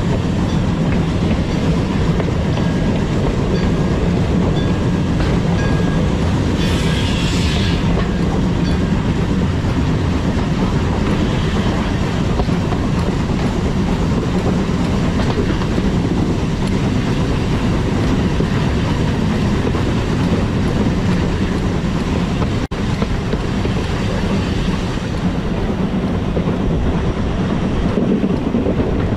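Furka Steam Railway train running along metre-gauge track with a steady rumble and wheel-on-rail noise. A brief hiss comes about seven seconds in.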